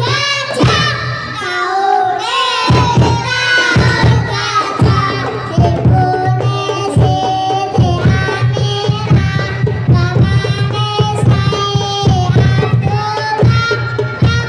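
A children's rebana group performing: young voices singing a melody into microphones over rebana frame drums beating a busy rhythm.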